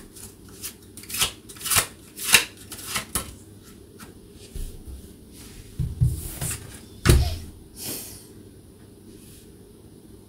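Tarot cards being handled on a table: a run of sharp slaps and taps about every half second for the first few seconds, then a few duller, heavier knocks around six to eight seconds in.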